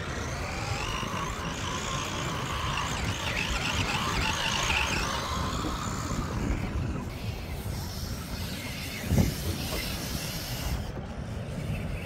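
Radio-controlled model car driving, its motor whining strongly for the first several seconds, then one sharp thump about nine seconds in.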